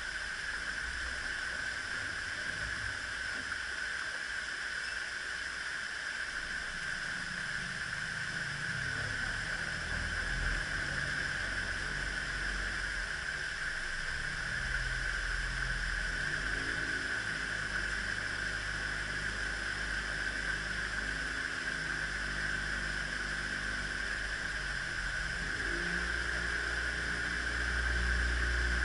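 Water rushing steadily through the open paddles of a canal lock's upper gates as the lock chamber fills. A low rumble joins in from about seven seconds in.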